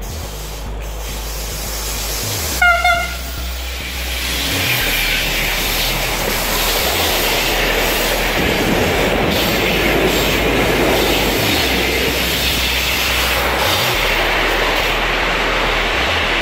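Electric locomotive hauling a container freight train gives a short horn blast about three seconds in. The locomotive and container wagons then pass close by, and the rush of wheels on the rails builds and holds steady and loud.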